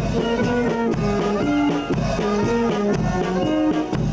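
Brass band music: trumpets and trombones playing a tune in several parts, with held notes changing step by step.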